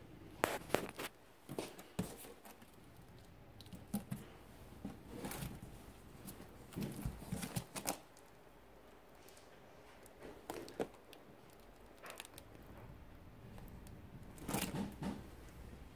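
Packing tape and a paper shipping label on a cardboard box being slit with a blade, with cardboard and plastic being handled: irregular short scraping, tearing and knocking sounds.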